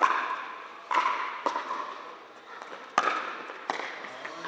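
Pickleball rally: paddles striking the plastic ball, five sharp hits in a few seconds, each echoing in a large hall.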